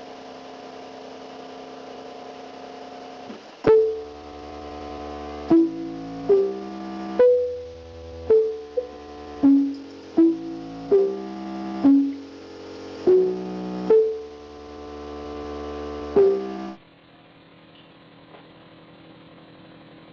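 A simple melody played on a keyboard, one note at a time, about a dozen notes, each starting sharply and held. It follows a steady held tone and cuts off suddenly near the end, leaving a faint hum.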